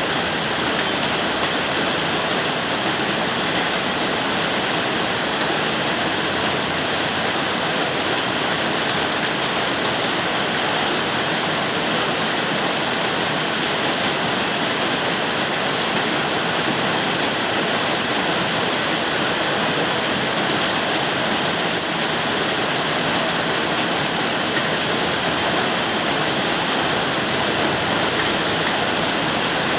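Steady rainfall, an even unbroken hiss with no let-up.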